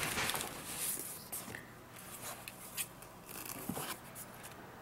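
Handling noise: a plastic infrared thermometer being drawn out of its fabric pouch, a scratchy rustling that is loudest in the first second, with a few light clicks and taps.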